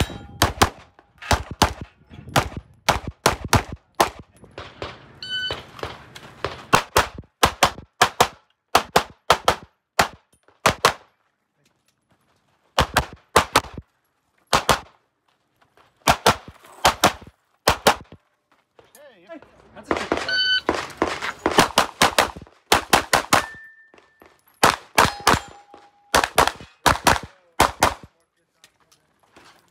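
Glock 17 Gen 5 9mm pistol firing fast pairs and strings of shots, with short pauses between strings. A few brief ringing tones sound among the shots.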